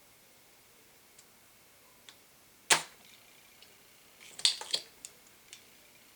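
A spring-loaded desoldering pump (solder sucker) firing with one sharp snap about two and a half seconds in, followed a second and a half later by a quick cluster of clicks and a few faint ticks.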